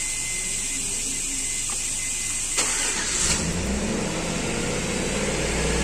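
Chevy Tahoe V8 engine starting about three seconds in, then running at a raised idle. The high idle follows a throttle body cleaning: the idle has not yet been reset or relearned with the scan tool.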